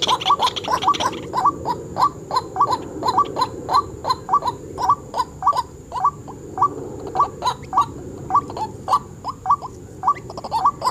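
White-breasted waterhen calling: a long, rhythmic run of short, harsh 'kwak' notes, about three a second.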